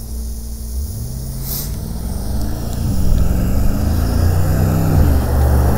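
Mercedes-AMG G63's twin-turbo V8 accelerating, rising in pitch with upshifts about three seconds in and again near five seconds, and growing louder as the SUV approaches.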